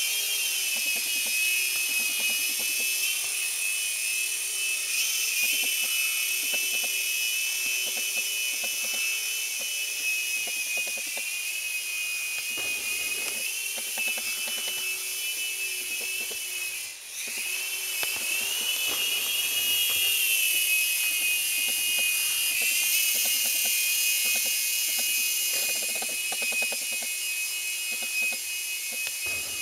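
Phoenix 3-channel mini RC helicopter's small electric motors and rotor blades whining at a high pitch in flight. The pitch wavers up and down with the throttle, dipping briefly a little past halfway and then rising again.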